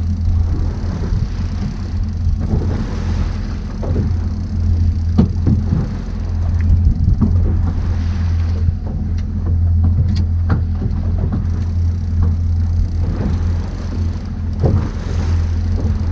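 Boat engine running steadily under way, a constant low drone, with a rushing haze of water and wind over it and scattered light knocks and clicks.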